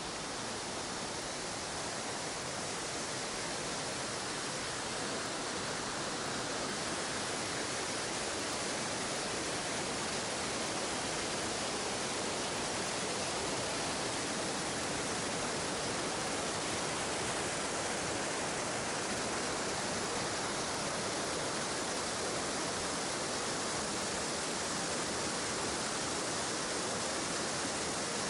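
Steady rushing of a mountain stream tumbling down rock cascades in a gorge, growing a little louder over the first several seconds and then holding even.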